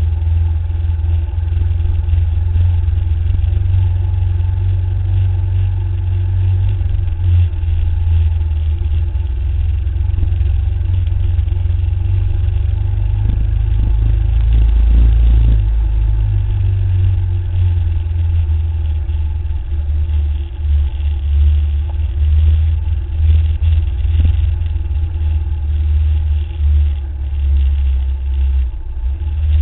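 Adventure motorcycle engine running at a steady, easy cruise, heard from a camera mounted on the bike. A heavy low rumble dominates, with little change in engine speed throughout.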